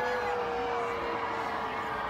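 Crowd of people cheering, with several voices holding long drawn-out calls over general crowd noise.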